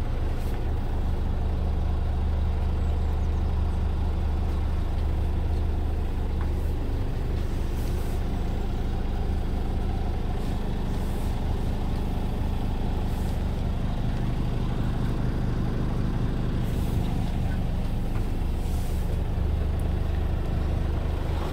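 Scania G480 truck's straight-six diesel idling steadily, heard from inside the cab as an even low hum.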